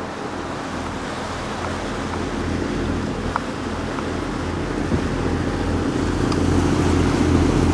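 Boat under way: the steady low drone of its motor under wind noise on the microphone and rushing water, slowly growing louder toward the end.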